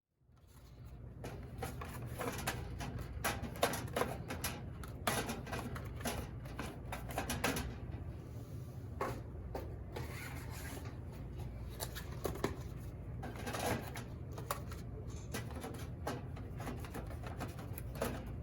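Irregular clicking, tapping and rattling of small hard parts being handled, dozens of sharp knocks, over a steady low hum.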